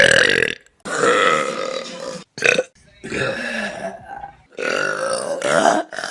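Several loud, drawn-out human burps in a row, about five, each cutting off abruptly before the next begins.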